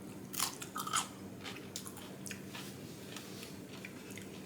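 A person chewing a mouthful of crisp refrigerator-pickled cucumber slice, with two sharp crunches in the first second, then softer crackly chewing. The crunch is the sign of a pickle still firm after 24 hours in the brine.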